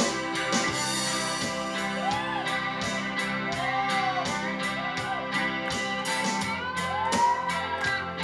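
Live band playing: an electric guitar solo on a Stratocaster-style guitar, with notes bent up and back down, over a steady drum beat, bass and sustained keyboard chords.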